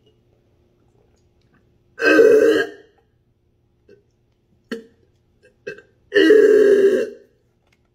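A man gagging twice after gulping a vinegar, egg, mayonnaise and vodka drink: two loud retching heaves from the throat, a few seconds apart, with faint clicks between them.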